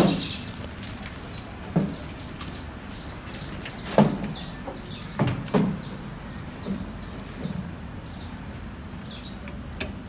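A few knocks and thumps as someone climbs into an auto rickshaw's driver seat, the loudest about four seconds in, over a bird's repeated high chirps.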